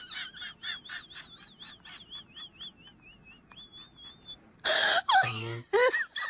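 Dog panting rapidly, about four to five breaths a second, with a high wavering whine over it that dies away. About four and a half seconds in comes a sudden loud burst, then a person's moaning voice near the end.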